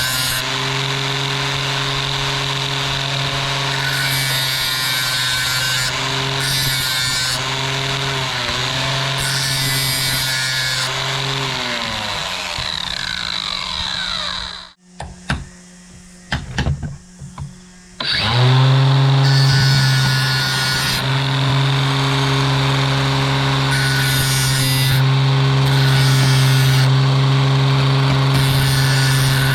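Handheld electric cutting tool slicing through steel key stock: a steady motor whine with a harsh grinding hiss. It winds down and stops about twelve seconds in, a few clicks and knocks follow, then it starts up again and runs steadily until it winds down at the end.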